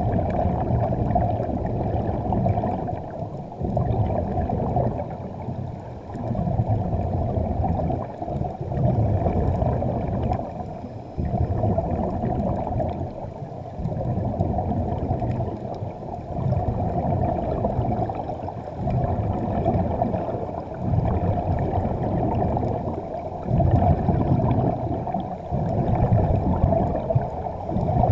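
Muffled underwater rumble heard through a camera's waterproof housing, swelling and dropping every two to three seconds.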